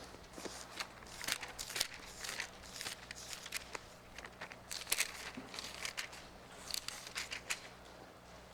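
Bible pages being leafed through: irregular soft rustling and crinkling of thin paper, over a faint steady electrical hum.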